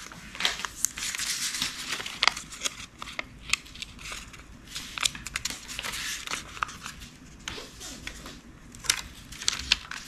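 Sheets of origami paper rustling and crinkling as they are folded and creased by hand, with many irregular sharp crackles.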